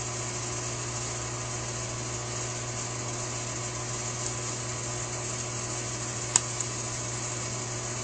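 Steady low background hum, with one sharp metallic click about six seconds in and a fainter click just after, as a small wire retaining clip is pushed into place in a Holley 4000 carburetor's secondary diaphragm housing to hold the check ball.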